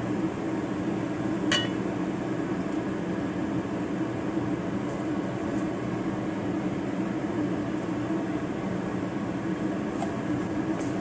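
Steady rumbling kitchen noise as a thick chili sauce cooks in a frying pan, with one light clink about a second and a half in and a couple of faint ticks near the end.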